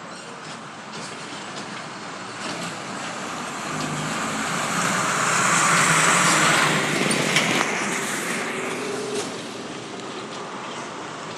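A road vehicle passing by: its noise swells to a peak about halfway through, then fades away.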